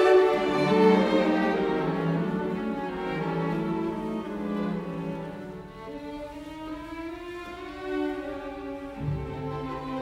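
Background music of bowed strings, violin and cello, playing slow held notes.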